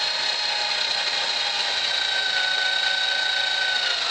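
Power drill running steadily with a motor whine, drilling out a stripped cylinder head bolt hole in the engine block to take a Time-Sert thread insert; a second, higher tone joins in about halfway through as the bit cuts.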